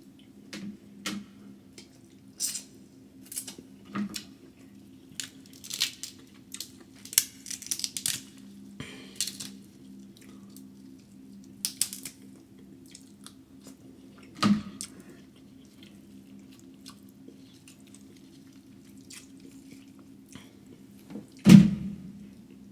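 Close-miked eating of a king crab and snow crab seafood boil: scattered cracks, clicks and wet squishes of crab shell being broken and picked, with chewing and smacking, busier in the first half and sparse later. A sharp crack or knock near the end is the loudest sound, over a steady low hum.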